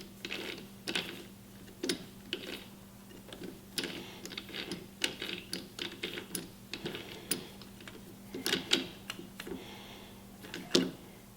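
Irregular light metallic clicks and taps of small tools and parts being handled while setting up to drill out a small washer, over a faint steady hum.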